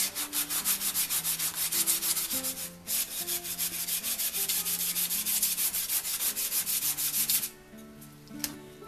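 Fine 500-grit sandpaper rubbed briskly back and forth along the wooden beam of a marking gauge, about six strokes a second. It pauses briefly just before three seconds in and stops about a second before the end. It is light sanding to shine the surface and clean off smudges, not to remove much wood.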